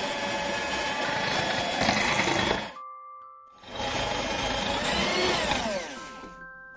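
Electric hand mixer on medium speed, its beaters whisking whipping cream in a glass bowl as the cream thickens toward soft peaks. It runs, stops briefly about three seconds in, runs again, then winds down with a falling pitch near the end.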